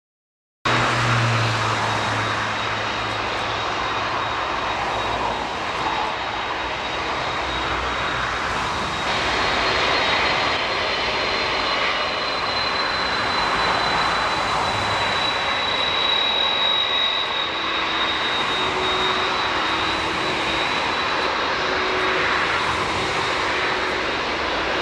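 Airbus A380 jet engines running loud and steady with a thin high whine over the noise, starting abruptly under a second in; the whine drifts slightly lower about two-thirds of the way through.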